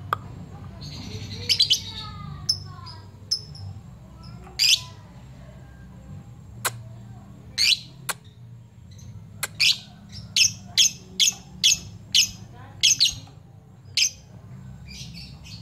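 Lovebird giving short, sharp, high-pitched chirping calls, some single and some in quick runs, most of them in the second half. This is a calling bout meant to draw out a rival.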